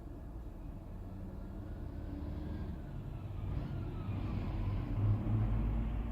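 Low rumble inside a Toyota Mark X's cabin, swelling louder toward a peak about five seconds in, with a faint falling whine in the middle.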